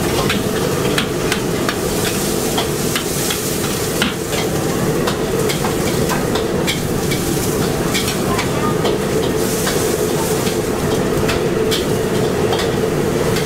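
Thin rice noodles stir-fried in a steel wok: a metal spatula scrapes and clacks against the pan again and again over a steady sizzle and a low hum.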